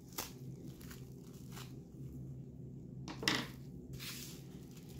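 Scissors snipping through a plastic bubble-wrap mailer, the plastic crinkling in gloved hands. A louder clack a little past three seconds in as the scissors are set down on the wooden table.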